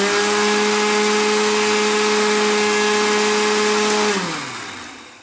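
Kitchen mixer-grinder motor running at full speed, grinding soaked rice with a little water in its stainless steel jar. About four seconds in it is switched off and winds down, its hum falling in pitch and fading.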